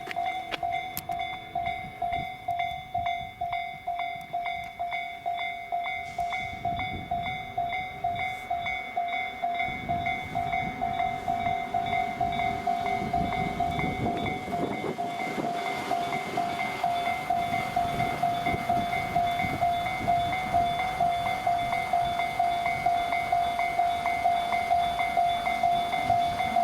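Japanese level-crossing bell in the Tobu 'Tojo' tone (Tobu C tone) ringing in rapid repeated electronic dings. Over it, a Tobu 10030 series electric train passes, its rumble and wheel clatter strongest about halfway through.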